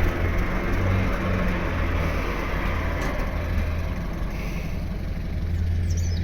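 Standard Fordson tractor's four-cylinder engine running steadily at a low, even speed.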